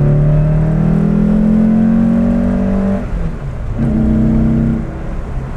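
Porsche 356's air-cooled flat-four engine pulling under acceleration, its pitch rising steadily for about three seconds. It then breaks off, picks up again a second later at a lower pitch, and drops away near the end.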